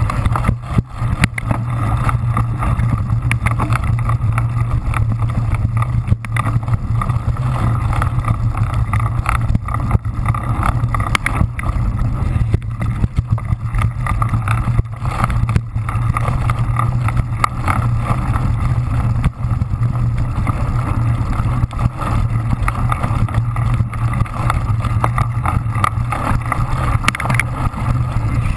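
Onboard sound of a cyclocross bike ridden fast over a sandy course: a steady rush and rumble of wind and tyres on the camera's microphone, with frequent knocks and clicks from the bike.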